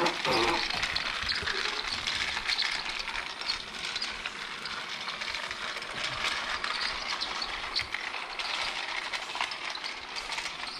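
Battery-powered Thomas & Friends TrackMaster toy engine running along plastic track with a truck in tow: a steady whir of its motor and gears with rapid clicking and rattling throughout.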